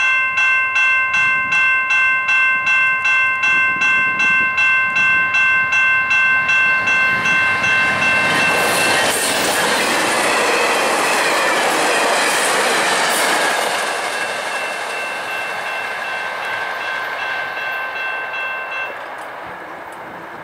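Level-crossing warning bell ringing at about two strokes a second. About 8 s in, a VIA Rail passenger train hauled by a P42 diesel locomotive passes with a loud rush of wheels on the rails that drowns the bell for several seconds. The train noise then fades, and the bell is heard faintly again before it stops near the end.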